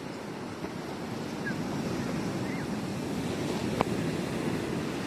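Sea waves breaking and washing up on a sandy beach: a steady rushing surf. A brief sharp click comes nearly four seconds in.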